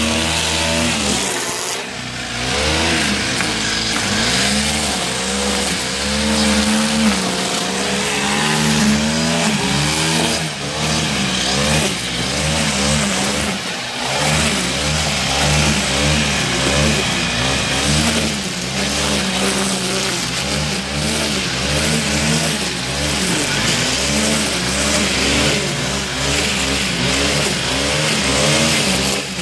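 Two-stroke Stihl brushcutter engine under load while cutting thick grass and brush. Its revs rise and sag in a repeating wave about once a second as the head bites into the growth and recovers, with a couple of brief drops in revs.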